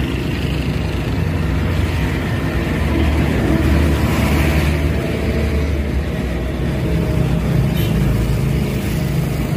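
An engine running steadily nearby: a continuous low rumble with a steady hum.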